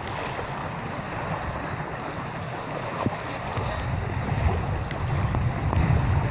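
Wind buffeting the microphone in low, gusting rumbles that grow stronger near the end, over a steady wash of shallow sea water.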